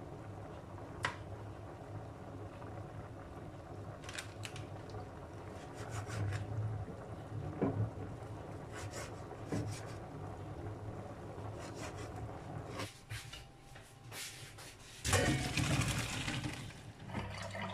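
Kitchen knife slicing a cured sausage on a plastic cutting board: soft sawing and rubbing, with sharp taps of the blade on the board now and then. About fifteen seconds in, boiled macaroni and its cooking water are poured into a colander in a steel sink, a sudden splashing rush.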